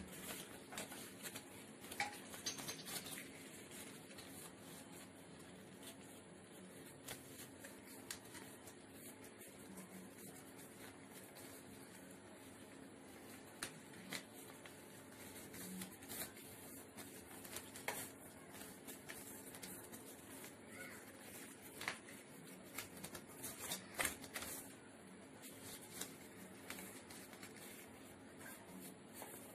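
Sheet of origami paper being folded and creased by hand on a wooden desk: soft rustling with scattered sharp crinkles, over a faint steady hum.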